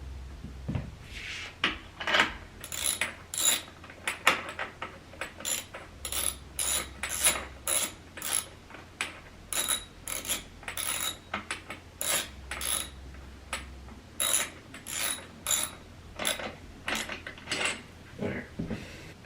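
Ratchet mechanism clicking in short runs, about two sharp clicks a second with brief pauses in between.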